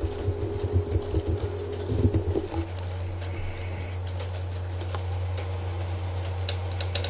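Computer keyboard clicking as a word is typed, stopping about two and a half seconds in. A steady low hum runs underneath, with a few faint ticks after the typing stops.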